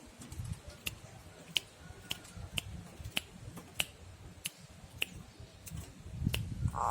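A series of about ten sharp, evenly spaced clicks, roughly one every two-thirds of a second, over a low rumble. Just before the end a zebra dove (perkutut) starts to coo.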